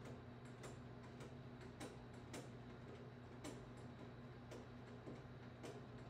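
Faint, irregular sharp clicks, about one or two a second, over a steady low hum in a near-silent room.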